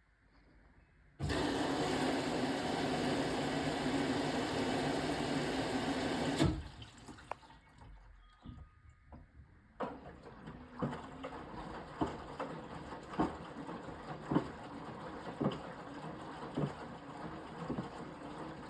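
Beko BM3WT3741W washing machine filling: about a second in, water rushes in loudly through the inlet for about five seconds, then cuts off suddenly with a thud. After a short lull the machine carries on with a quieter steady sound and regular soft knocks about once a second, typical of the drum turning and the wet load tumbling.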